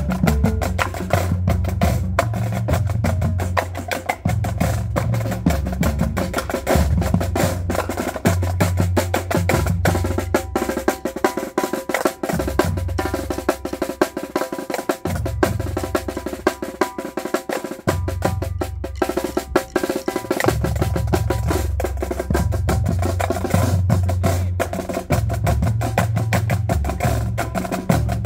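Marching drumline playing: snare drums with fast, continuous strokes and rolls, along with tenor drums and low bass drum notes that change pitch. The low bass drum notes drop out for several seconds about halfway through and then return.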